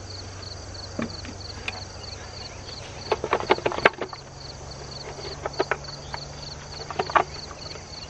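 Wooden beehive frames and super boxes knocking and scraping as they are handled and brushed clear of bees, in a cluster of clicks about three seconds in and again near seven seconds. Behind them, crickets chirp in a steady even pulse and bees hum low.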